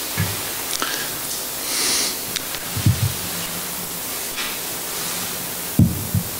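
Steady hiss with a few soft, dull thumps as things are handled on an altar close to a microphone. There is a short breathy rush about two seconds in.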